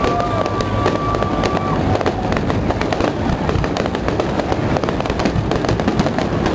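Fireworks display with aerial shells bursting, giving a dense, unbroken crackling and popping. A held whistling tone runs over the first two seconds.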